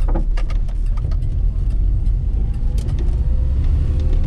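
Austin Allegro 1500's E-Series four-cylinder engine running, heard from inside the cabin as a steady low rumble, with a faint whine rising in pitch through the second half as it pulls away.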